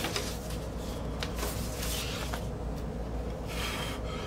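Paper rustling and rubbing as a vinyl LP is handled and slid out of its white paper inner sleeve.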